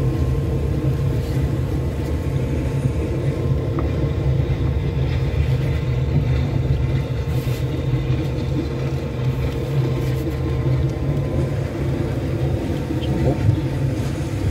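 Car driving along a road: a steady low rumble of engine and tyre noise with a faint steady hum above it.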